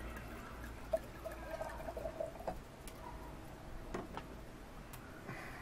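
Red wine being poured from a bottle into a wine glass: a sharp click about a second in, then a short pour of liquid running into the glass.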